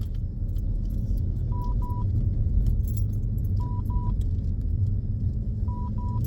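Dashcam warning beeps: a double beep of two short, high, steady tones about every two seconds, three pairs in all, over the low rumble of the car. The driver traces the beeping to the dashcam having no SD card inserted.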